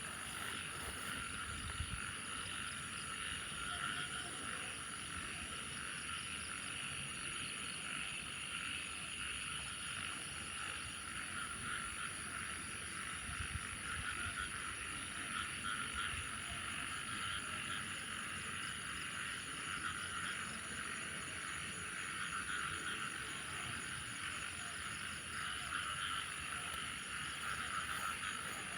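A dense chorus of frogs calling together, many small rapid calls blending into a steady trill, with a continuous high-pitched insect drone above it. Typical of frogs breeding after heavy rain.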